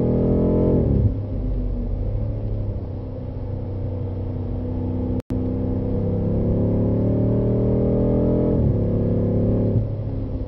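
BMW M5's twin-turbo V8 heard from inside the cabin, climbing in pitch under hard acceleration, then falling away about a second in as the throttle comes off. From about halfway it climbs again for several seconds and drops sharply near the end at an upshift. There is a split-second gap in the sound around the middle.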